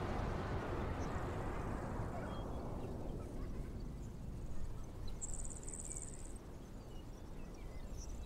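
Recorded outdoor ambience: a steady low rumble whose hiss fades over the first few seconds, with a brief high-pitched insect-like chirping trill about five seconds in.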